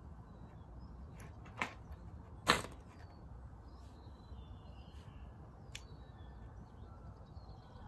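Two sharp clicks about a second apart, the second louder, as the propeller of a Cox .049 glow engine is flicked over by hand; the engine does not catch and run.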